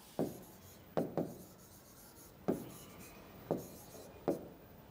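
A pen tapping and rubbing on an interactive whiteboard screen while writing: about six short, sharp taps spread unevenly through the strokes.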